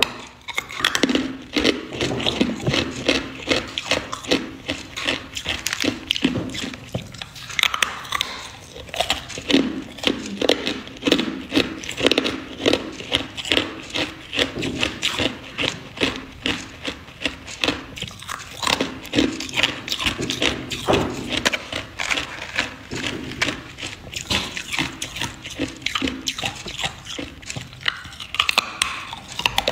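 Hard clear ice chunks being bitten and chewed: a continuous run of sharp cracks and crunches, many a second, with brief lulls between bites.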